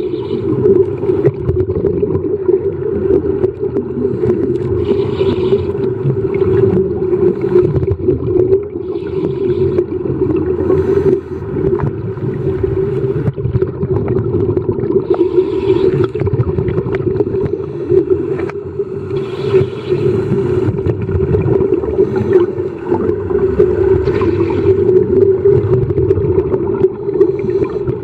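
Muffled underwater sound: a steady low drone, with a diver's scuba regulator exhaling a burst of bubbles every four to five seconds.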